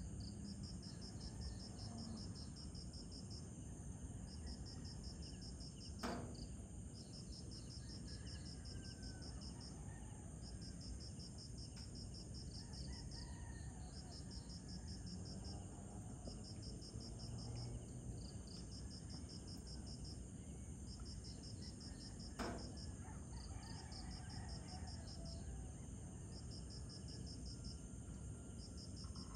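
An insect calling at night, cricket-like: trains of rapid high-pitched pulses, each a second or two long, repeating with short gaps over a low background hiss. Two brief sharp clicks, about six seconds in and again past twenty-two seconds.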